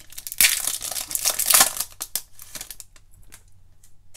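Foil wrapper of a Panini Prizm basketball card pack crinkling as it is torn open by hand, a dense rustle for about the first two seconds, then only a few faint ticks.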